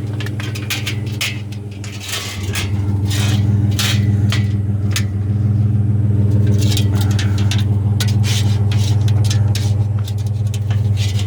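A vehicle engine idling steadily with a low hum that grows louder a couple of seconds in, over repeated sharp metallic clanks and rattles of scrap metal being broken down and handled.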